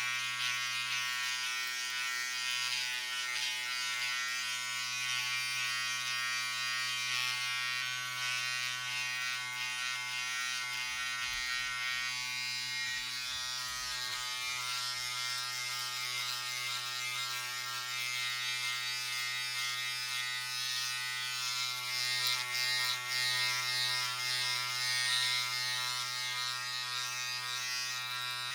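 Electric razor buzzing steadily, a constant motor hum with a hissing cutting noise on top that grows a little brighter and louder about three-quarters of the way through.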